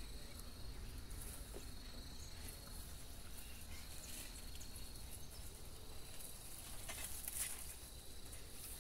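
Faint insects trilling on and off, with a few soft rustles of leaves and twigs about seven seconds in.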